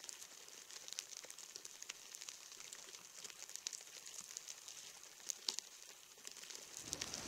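Rain ants (army ants) swarming over dry leaf litter, heard close up as a faint, irregular crackling and ticking over a soft hiss.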